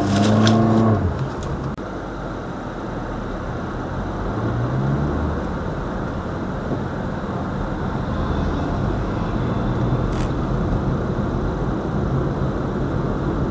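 Car engine and tyre noise heard from inside the car's cabin as it drives in town traffic. The engine note rises briefly about four seconds in as the car accelerates.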